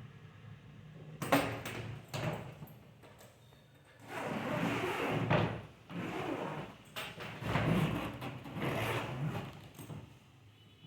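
Handling noises from a hard-shell polycarbonate trolley suitcase: two sharp knocks early, then several stretches of scraping and rustling as it is moved and worked.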